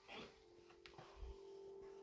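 Near silence in a song's introduction, with a faint held musical tone fading away.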